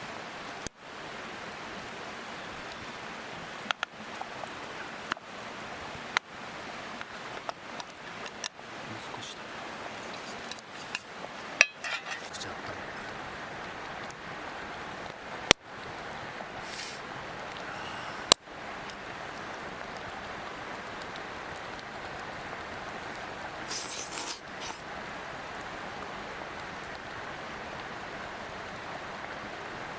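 Steady rush of a mountain stream, broken by about a dozen scattered sharp clicks and clinks, most of them in the first two-thirds.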